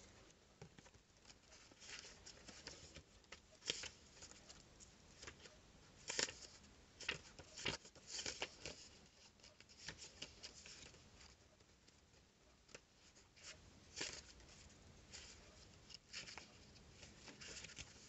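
Quiet, irregular rustles and soft clicks of paper cards being handled, with short gaps between them.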